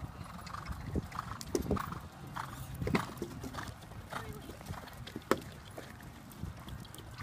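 Hoofbeats of several horses cantering on a sand arena, an irregular run of dull thuds with a couple of sharper knocks about three and five seconds in.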